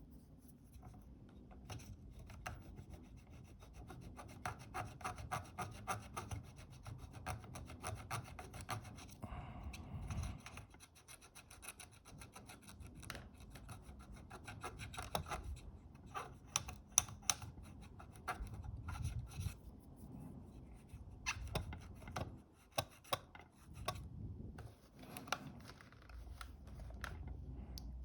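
Quick scratchy rubbing strokes of sticky glue being scrubbed off a Fuji GA645 camera's shutter flex cable with alcohol, coming in runs with short pauses between them.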